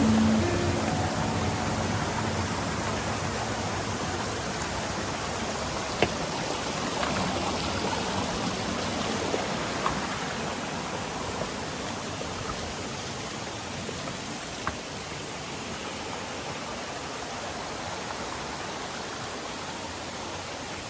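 Steady rush of water from a mountain stream and waterfall, an even hiss with a few sharp clicks, one about six seconds in and others around ten and fifteen seconds.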